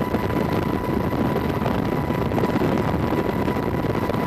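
Steady rushing wind and engine noise with a thin, constant high whine.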